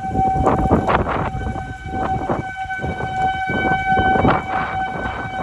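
Outdoor tornado warning siren sounding a single steady tone, holding its pitch, with overtones above it. Gusts of wind buffet the microphone in rough surges over the tone.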